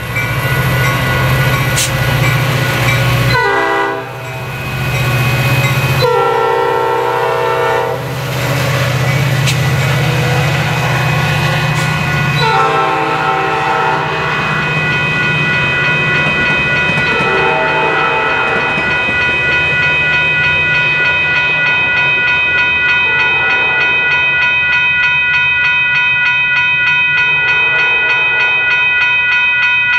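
Metra MP36 diesel locomotive pulling out with its commuter train, engine working under power and air horn sounding several blasts over the first twenty seconds, the later blasts lower in pitch as it moves away. A grade-crossing bell rings steadily through the second half as the train recedes.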